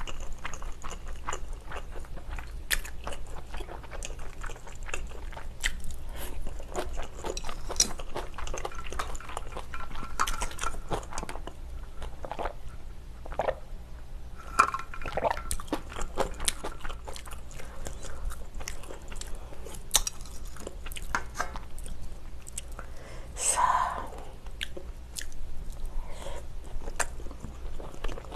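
Close-miked chewing of spicy stir-fried pork and thick glass noodles: a run of wet mouth clicks and smacks, with a few louder mouth noises in the second half.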